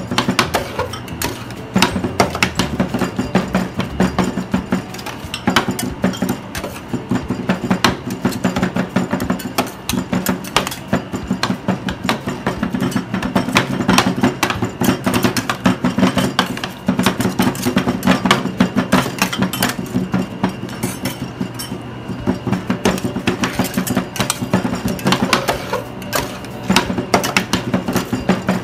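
Metal spatulas rapidly chopping and scraping fruit and yogurt on the frozen plate of a fried-yogurt pan, a fast, continuous run of metallic knocks and clinks.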